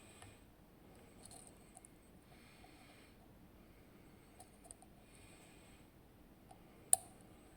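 Faint, scattered metallic ticks of a lock pick working the pins of a zIKON SK6 high-security pin-tumbler lock, with one sharper click about seven seconds in.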